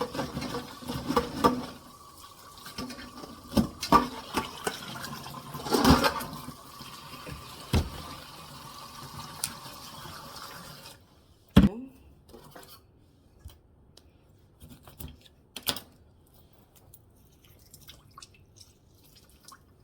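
Kitchen tap running steadily while crab pieces are rinsed under it, with knocks and clatter as they are handled. The water cuts off suddenly a little past halfway, leaving a few scattered light knocks.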